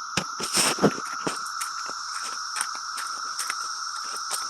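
Many cicadas calling together, a steady high buzzing drone, with a short rustle and a few sharp clicks in the first second.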